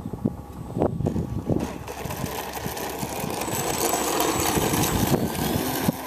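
Electric motor and propeller of a radio-controlled T-28 model plane in flight, a whine that grows louder over the first few seconds as the plane comes closer, over gusty wind buffeting the microphone.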